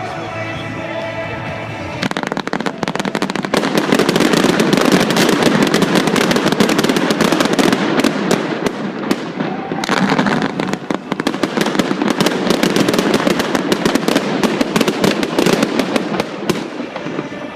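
Daytime fireworks going off in a rapid, dense barrage of bangs and crackles, starting about two seconds in, easing briefly about ten seconds in, then building again until near the end. Music plays in the first two seconds.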